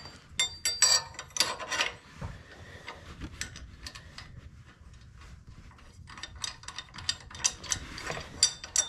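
A ratchet wrench clicking in quick runs, with metal tools clinking, as the bolts are tightened.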